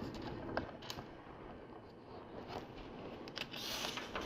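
Small plastic LEGO pieces being handled and pressed together: a few faint, scattered clicks, with a brief rustle near the end.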